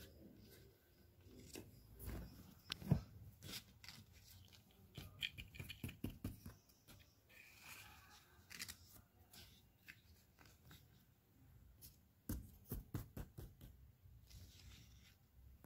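Faint, scattered clicks and light knocks of small plastic toy figurines being handled and set down on a hard surface, with a sharper knock about three seconds in and another cluster of taps near the end.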